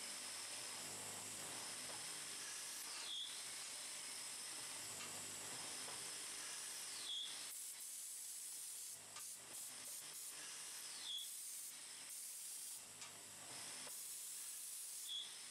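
A German 1988 cam-controlled automatic wood-turning lathe running through its cycle, its cutters shaving a wooden rod into beads with a steady hiss. A short high squeak comes about every four seconds, four times.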